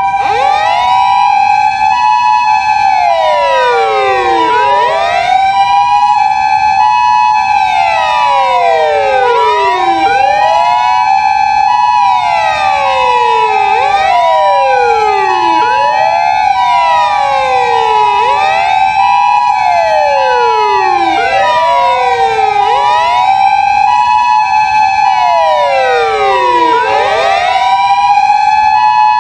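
Several Japanese emergency-vehicle sirens sounding together. Wailing sirens rise and fall every few seconds, overlapping one another, over an ambulance's steady two-tone hi-lo siren alternating between a higher and a lower note.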